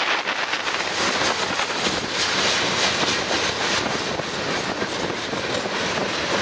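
Freight train cars rolling past, their steel wheels clacking over the rail joints in a steady stream of noise, with wind buffeting the microphone.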